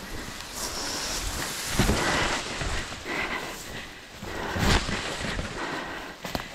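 Tall grass swishing and brushing against the microphone while someone walks through it, with footsteps and wind noise on the microphone; a few louder thumps, about two seconds in and again near five seconds.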